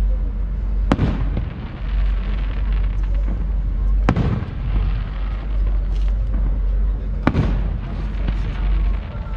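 Fireworks display: three sharp aerial shell bursts about three seconds apart, each with a trailing echo, over a steady low rumble and scattered faint crackling.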